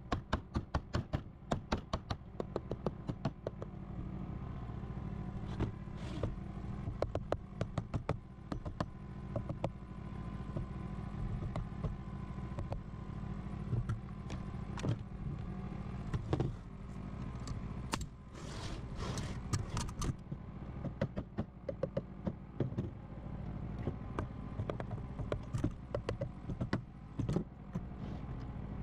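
Claw hammer tapping a pine 2x4 drawer frame together with quick repeated blows in the first few seconds, then scattered knocks and clatter as the wood and tools are handled, over a steady low hum.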